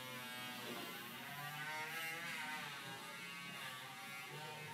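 A steady hum with a buzz over it, wavering slightly in tone.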